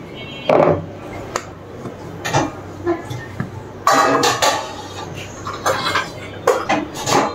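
Kitchen utensils clinking and scraping against dishes and cookware in a string of irregular knocks, the longest lasting about half a second around four seconds in.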